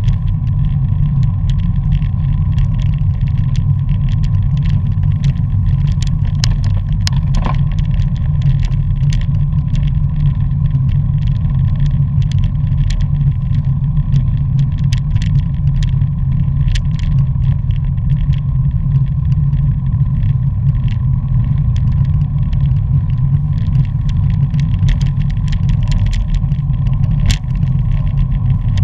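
Wind rushing over a moving bicycle-mounted microphone, a loud steady low rumble, with frequent small clicks and rattles from the bike and road.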